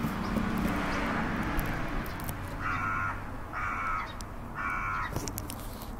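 A crow cawing three times, about a second apart, each caw short and harsh. A hiss of noise fills the first couple of seconds before the calls.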